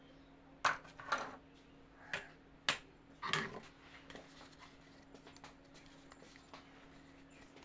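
Small plastic toy kitchen pieces being handled, giving about five sharp clicks and knocks in the first few seconds, then faint ticks, over a faint steady hum.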